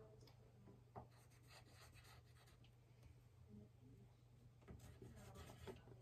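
Faint scratching of writing on paper in short strokes, with a light tap about a second in and a low steady hum underneath.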